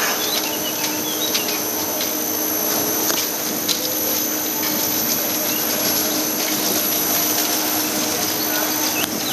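Steel family coaster car rolling along its track on the slow final run into the station: a steady rolling noise with a constant whine and a few light clicks.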